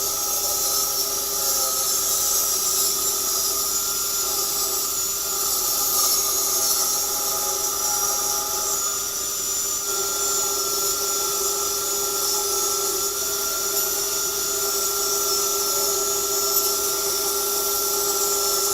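Table saw running with a steady whine while ripping wooden flooring planks down to a uniform width.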